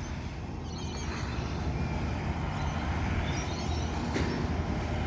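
Steady low rumble of heavy vehicles running, with no single event standing out.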